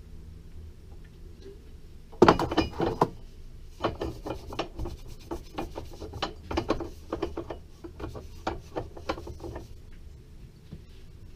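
Hand tools and small metal parts handled at a workbench vise. A burst of clattering knocks comes about two seconds in, then a string of irregular clicks and rattles that stops near the end.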